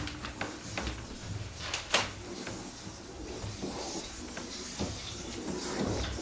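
Irregular rustling, scraping and clicking as a large hanging sheet is handled, with one sharper crack about two seconds in.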